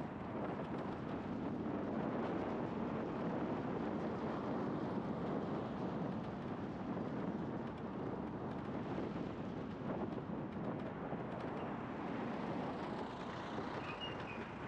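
Steady wind rush over the microphone mixed with tyre and road noise from a moving scooter, easing slightly as it slows near the end. A few faint high chirps come in near the end.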